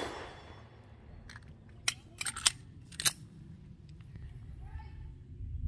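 The dying echo of a pistol shot, then a handful of sharp clicks and clacks about two to three seconds in.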